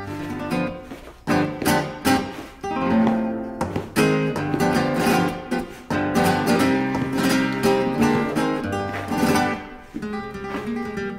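Background music: flamenco-style acoustic guitar, with sharp strummed chords recurring every second or two between plucked notes.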